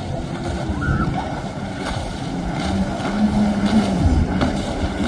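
Yamaha WaveRunner personal watercraft running at speed: a steady engine drone with a wavering pitch, over the rush of water spray.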